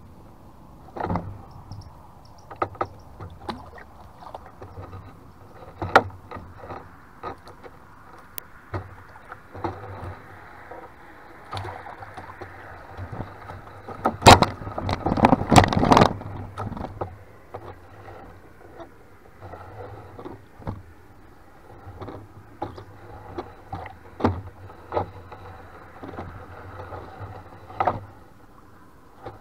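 A gill net being hauled by hand over the side of a wooden boat: water splashing and dripping, with scattered knocks of the net and hands against the wooden hull. There is a louder run of knocks and splashes around the middle.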